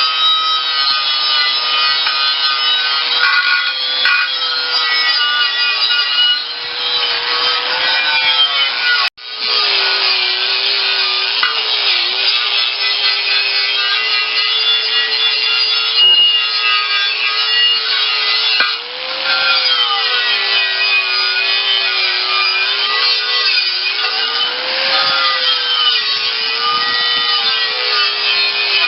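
Power sanding tool grinding on a pony tractor's steel wheel rim, sanding it down for priming. Its motor whine sags and recovers in pitch as it is pressed against the metal, and the sound cuts out for a moment about nine seconds in.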